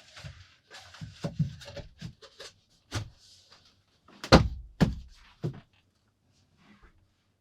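A run of irregular wooden-sounding knocks and thuds with lighter clatter between, the heaviest thump a little past four seconds in followed by two more.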